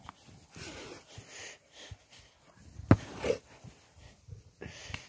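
XL bully dog chewing and gnawing at a football, snuffling and breathing hard through its nose, with a sharp click about three seconds in.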